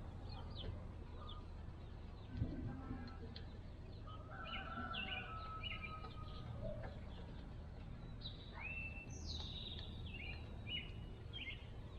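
Songbirds chirping and singing in short repeated phrases, over a steady low background hum, with a few faint clicks.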